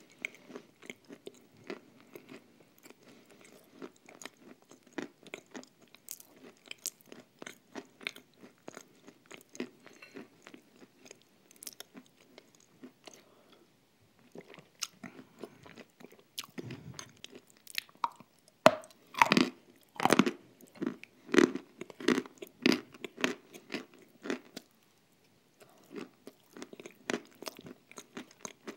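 Close-miked eating of a thick cream with crumbled nuts: steady wet chewing with many small mouth clicks and crunches. About halfway there is a sip of water, followed by a stretch of much louder, sharper crunching chews before it settles back to soft chewing.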